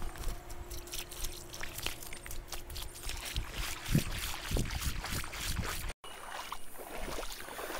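Water sloshing and splashing around the legs of someone wading a shallow creek in waders, with scattered clicks and a few dull knocks. The sound cuts out for an instant about six seconds in and comes back quieter.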